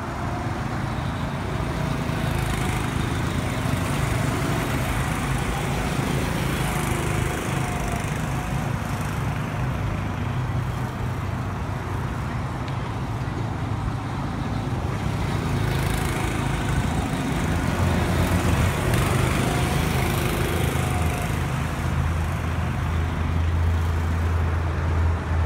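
Small petrol engines of track go-karts running steadily. The engine note swells as a kart passes close near the start and grows louder again near the end as a kart comes back round.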